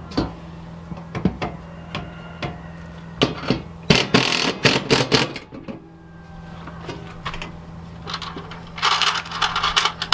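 Hand-tool work fastening a stovepipe wall thimble and bracket to a wall: scattered clicks and knocks, with bursts of rapid clicking and rattling about four seconds in and again near the end, over a low steady hum.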